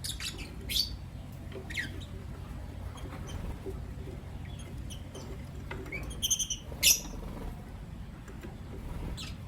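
Lovebirds giving short, sharp, high chirps: a few scattered single chirps, with a quick run of rapid notes about six seconds in followed by a louder chirp.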